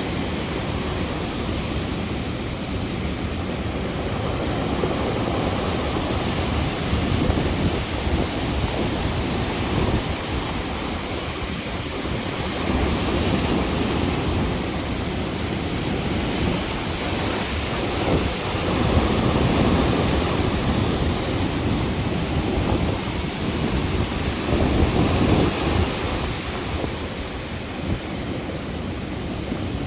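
Stormy sea surf: waves breaking and washing ashore in a loud, continuous roar that swells every few seconds, with wind buffeting the microphone.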